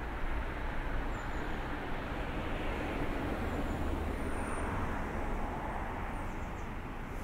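Road traffic noise: a steady wash of car sound with a low rumble, swelling slightly around the middle as a vehicle passes.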